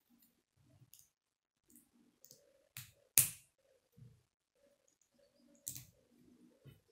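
Plastic K'nex rods and connectors being handled and snapped together: a scattered series of sharp plastic clicks, the loudest about three seconds in.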